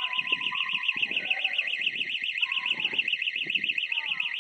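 Electronic alarm sounding a high, rapid warble of about eight pulses a second, steady in level, with faint lower scattered sounds beneath it.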